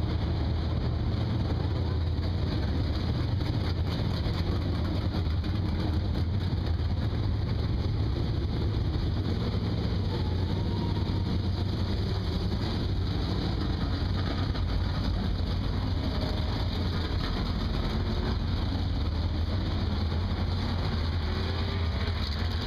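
Several dirt-track race car engines idling together in a steady low rumble as the cars roll slowly through the staging area.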